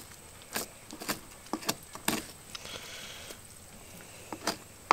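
Knife cutting breast meat away from a duck's breastbone: scattered soft clicks and scrapes of the blade and of handling the carcass, with one sharper knock near the end.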